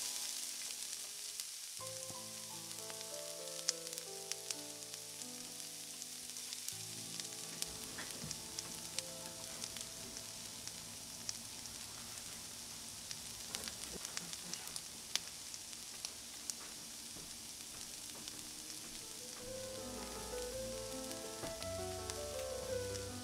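Butter sizzling and crackling in a stainless-steel skillet as slices of brioche bread fry in it, a steady hiss dotted with sharp pops. Soft piano music plays underneath.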